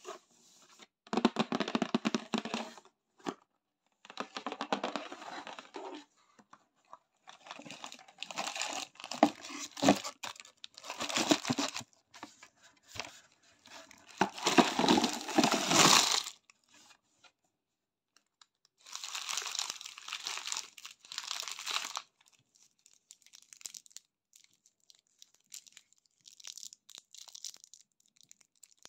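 Cardboard gift box being torn open and crinkling plastic candy wrappers rustling as the sweets inside are handled, in several loud bursts with short pauses. Quieter crinkling of a single foil-wrapped chocolate sweet near the end.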